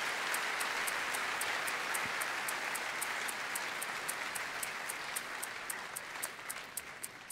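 Concert audience applauding, the applause slowly fading, while a steady high tick, about four ticks a second, keeps time through it.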